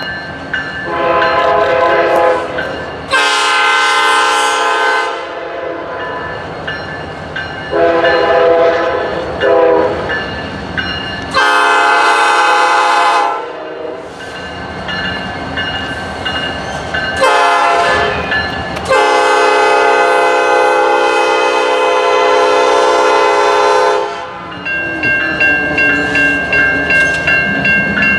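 Freight train's diesel locomotive air horn sounded in a series of long and short blasts, the last and longest lasting about five seconds. Near the end the horn stops, leaving the rhythmic clickety-clack of freight car wheels over rail joints, with a thin high steady tone above it.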